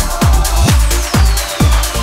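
Electronic dance music backing track with a steady kick drum a little over twice a second; a high descending synth sweep starts about a second in.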